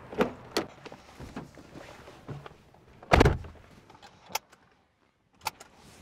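Suzuki Swift's car door clicking open and rustling as someone climbs in, then the door shutting with a solid thud about three seconds in. Two short sharp clicks follow, seat belts latching.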